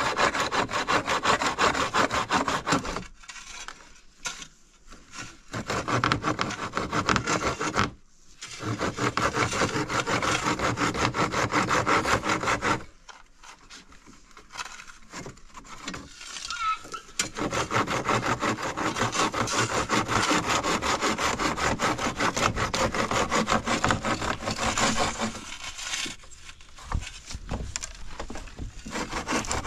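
Hand saw cutting through a wooden plank in fast back-and-forth strokes, in several runs broken by short pauses.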